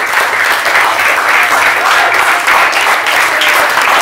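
A roomful of people applauding: steady, dense hand-clapping.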